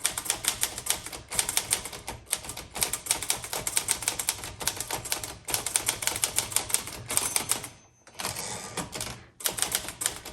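1964 Olivetti-Underwood Lettera 32 manual portable typewriter being typed on quickly: rapid keystrokes in runs of several a second, broken by short pauses.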